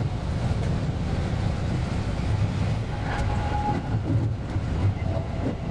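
JR West 223 series electric train running along the line, heard from the driver's cab: a steady low rumble with a faint tone coming and going.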